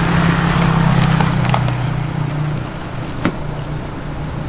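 A motor vehicle's engine running close by, a steady low hum that fades about two and a half seconds in. Light metallic clinks sound several times over it, the sharpest about three seconds in.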